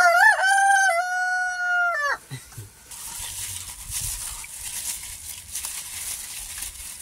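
A rooster crowing once. The call rises, holds a steady note and breaks off after about two seconds, and a faint high hiss follows.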